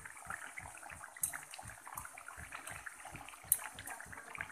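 Coconut-milk curry gravy boiling in a metal kadai: faint, steady bubbling with small pops and plops. There is a light click about a second in and a louder one past three seconds in.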